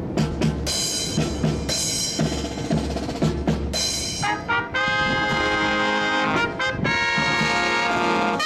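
Brass marching band with drums playing: short, accented brass chords over regular bass drum beats, then long held brass chords from about five seconds in.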